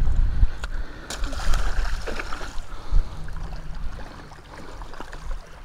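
Shallow water lapping and splashing at the sandy edge of the shore, with a few sharp splashes in the first seconds. Low rumbles of wind buffet the microphone near the start and again about three seconds in.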